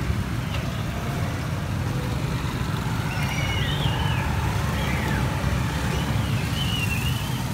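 Street noise dominated by a steady low rumble of engines and passing traffic. Faint high wavering calls or squeals come through about three seconds in and again near the end.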